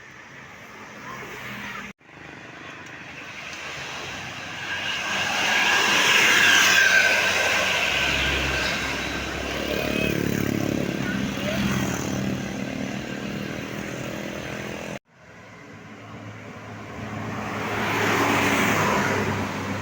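Road vehicles driving past: engine and road noise swells to a peak and fades away. It cuts off suddenly twice, and another vehicle passes near the end.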